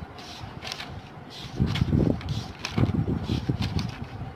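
Paper pages of a paperback book being flipped and rustling, with several short swishes.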